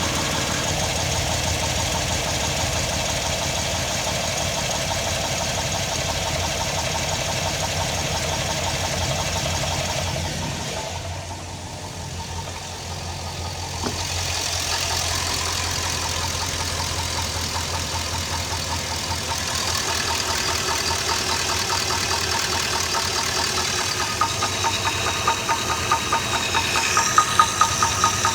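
Chevy LQ4 6.0-litre V8 running with a steady, rapid knock from piston slap: the cylinder 5 piston is loose in its bore, with cam and lifters good. The sound drops for a few seconds about eleven seconds in, and the knocks stand out more sharply near the end.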